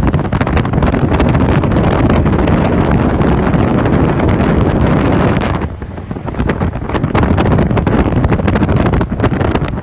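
Loud wind buffeting the microphone aboard a Yak aerobatic aircraft in flight, mixed with the aircraft's noise. It eases briefly a little after halfway, then comes back.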